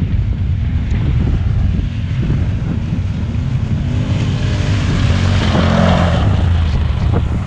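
Honda Pioneer 1000 side-by-side's engine running under throttle, its note rising and falling through the middle of the stretch.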